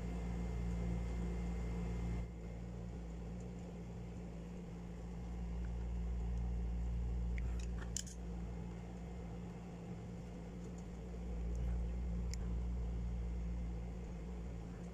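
A few faint, light clicks of a screwdriver and small metal parts of a spinning reel being handled, about eight seconds in and again near twelve seconds, over a steady low hum.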